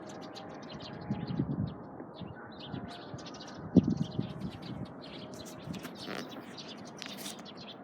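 Small birds chirping and twittering, with a few lower sounds and one low thump about four seconds in.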